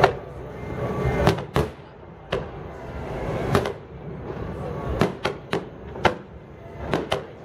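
Aerial fireworks shells bursting overhead in a fireworks finale: about a dozen sharp bangs at irregular spacing, coming closer together in the second half, with three in quick succession about five seconds in.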